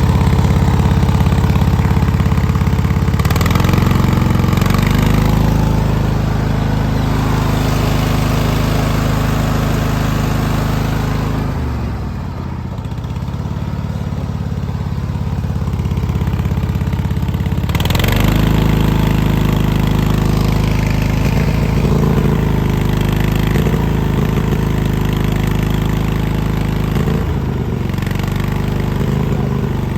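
Cub Cadet LT1046 lawn tractor engine running with a misfire, its speed shifting several times; the engine note sags and quietens about twelve seconds in, then picks back up near eighteen seconds.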